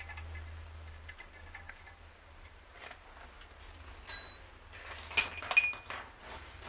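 Small metal parts and tools clinking against each other while being handled: a few faint ticks at first, then a sharp clink with a ringing tail about four seconds in, and several more clinks soon after.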